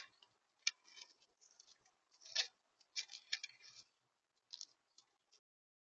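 Irregular clicks and scratches at a bird feeder close to the microphone, typical of a bird pecking at seed and shifting its feet on the feeder. They come in uneven clusters and stop shortly before the end.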